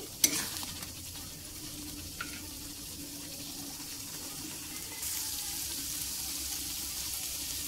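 Sweet soy and chilli sauce simmering and sizzling in an aluminium pan as its water cooks down, with one sharp knock of the metal spatula on the pan just after the start. The sizzle turns brighter and a little louder about five seconds in.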